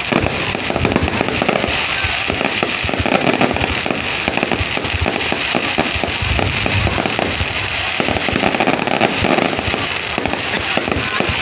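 Fireworks display: a dense, unbroken stream of bangs and crackles.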